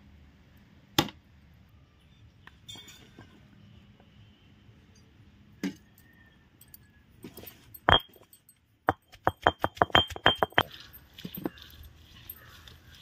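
Cooking utensils clinking: a few scattered single knocks, then a quick run of about nine ringing clinks in under two seconds, about two-thirds of the way through.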